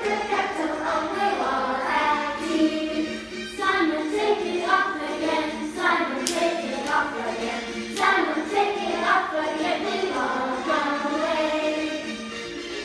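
A group of children singing a song together in chorus.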